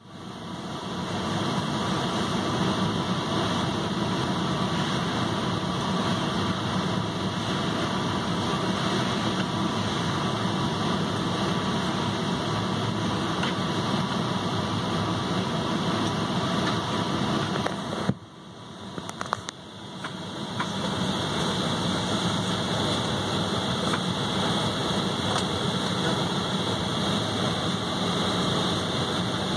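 Airliner cabin noise: the steady drone of the jet engines and rushing air, heard inside the passenger cabin. It drops away for about two seconds just past halfway, then returns.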